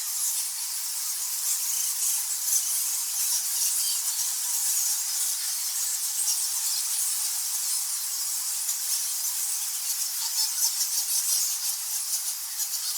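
A large colony of nectar-feeding bats squeaking and squawking: a dense chorus of many overlapping high-pitched squeaks that runs on without a break.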